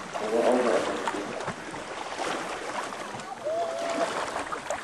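Fast-running river water rushing and splashing around small boats. Brief voices are heard in the first moment, and there is a short held call about three and a half seconds in.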